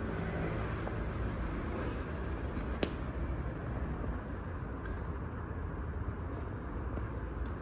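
Makita EG2800iSE inverter generator running steadily. A single short click sounds about three seconds in.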